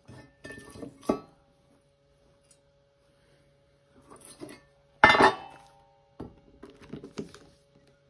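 Rusty steel C-channel and loose metal hardware being handled on a wooden tabletop: a series of clinks and knocks, the loudest a sharp metallic clank with a brief ring about five seconds in.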